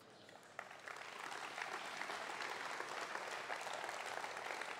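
Crowd applauding: many hands clapping, starting up about half a second in and then holding steady.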